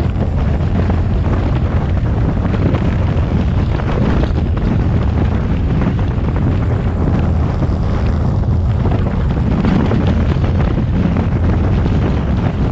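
Off-road vehicle driving on a dirt trail: steady engine and tyre drone, heavily buffeted by wind on the microphone.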